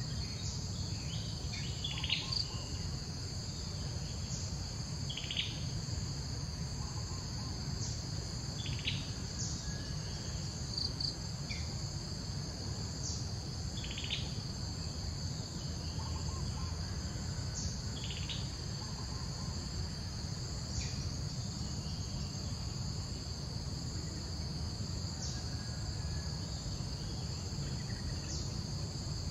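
Steady high-pitched drone of an insect chorus, with short high chirps every few seconds and a low rumble underneath.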